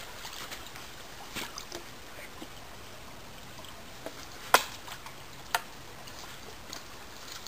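Small woodland stream trickling steadily, with a few sharp knocks, the loudest about halfway through, as a border collie bites at a stick and paws at the muddy bank.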